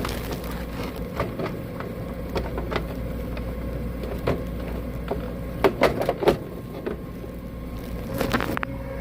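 Condensate pump running with a steady hum while more water is poured into its float-switch reservoir, with scattered sharp clicks and knocks, the loudest a cluster about six seconds in.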